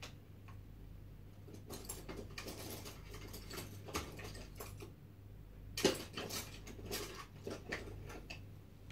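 Light scratching, rustling and small taps from hands working on a painting on the floor, with the loudest scrape about six seconds in, over a steady low electrical hum.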